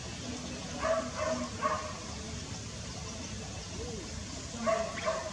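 Short animal calls: three clipped notes in quick succession about a second in, then two more near the end, over a faint steady background hum.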